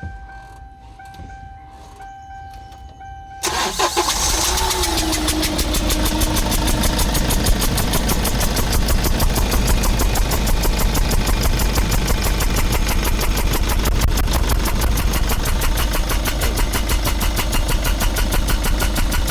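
A steady electronic tone, then about three and a half seconds in the Kia K2500's diesel engine cranks and starts, and runs on at idle with a rapid, even clatter. Number-3 injector is leaking at its seat. That leak is the source of the annoying sound the mechanic is chasing.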